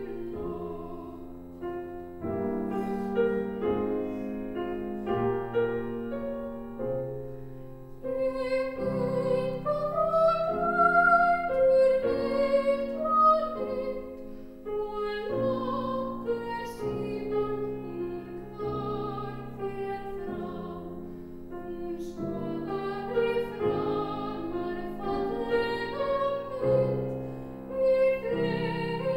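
A soprano sings a classical art song with a Bösendorfer grand piano accompanying her. Her held notes carry a wide vibrato over the piano chords.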